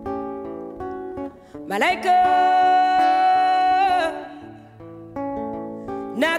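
Acoustic guitar picking single notes while a woman's singing voice slides up into one long held note about two seconds in, wavering as it ends. The guitar carries on alone, and the voice comes in again right at the end.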